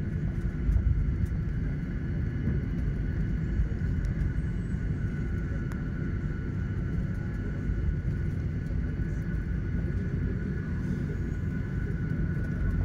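Cabin noise of a Boeing 737-900ER rolling along the runway after landing: a steady low rumble from the wheels and airframe, with a steady high whine from its CFM56-7B engines.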